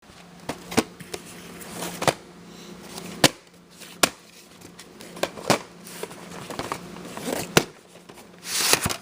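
Handling of a plastic VHS tape case: a dozen or so sharp, irregular clicks and taps. A rustle swells near the end, over a low steady hum.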